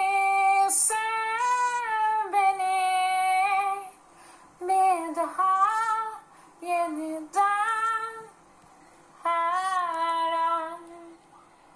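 A woman singing unaccompanied: long held notes with slides up and down in pitch, in four phrases with short breaths between them, the last dying away near the end.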